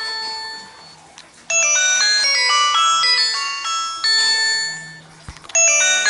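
Background music: a bright, chiming, bell-like melody in phrases, dipping quieter briefly about a second in and again shortly before the end.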